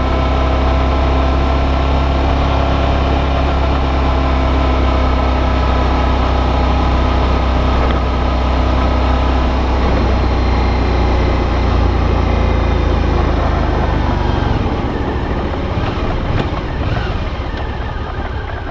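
Suzuki V-Strom 650's V-twin engine running steadily while the bike is ridden, heard from a camera mounted on the bike. About fourteen seconds in, the engine note changes and the sound slowly fades.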